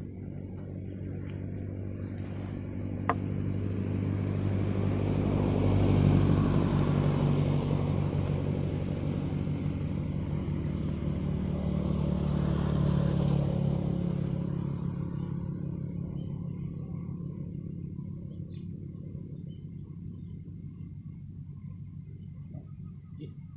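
A motor vehicle's engine passing: the hum grows louder, peaks twice about a quarter and about halfway through, then fades away. A single sharp click about three seconds in.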